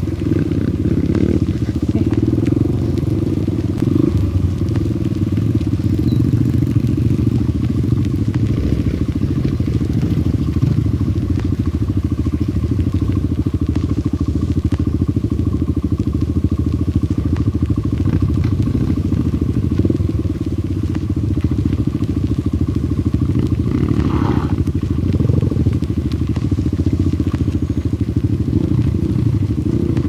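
Small single-cylinder trail motorcycle engine running at steady low revs while riding, loud and close from the camera's own bike.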